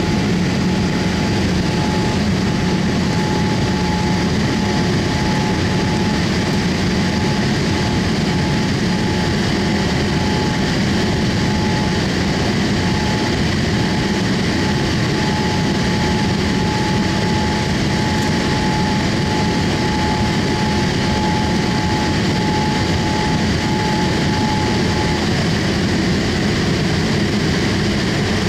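Boeing 787-8's Rolls-Royce Trent 1000 turbofan at climb thrust after takeoff, heard from inside the cabin beside the engine: a loud, steady, deep roar with a thin steady whine that cuts out a few seconds before the end.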